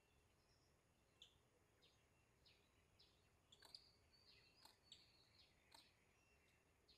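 Faint forest ambience with small birds chirping: short, high chirps and a few sharper notes about a second apart, busiest in the middle.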